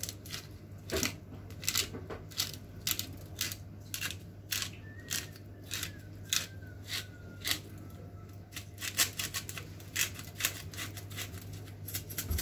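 A run of short, sharp clicks, about two a second and unevenly spaced, from hands working food just above a baking tray.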